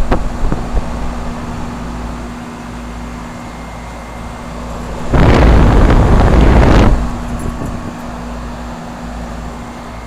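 Two Bryant heat pump outdoor units running in cool mode: a steady compressor hum under the condenser fan. About five seconds in, a loud rushing noise lasts nearly two seconds and cuts off suddenly.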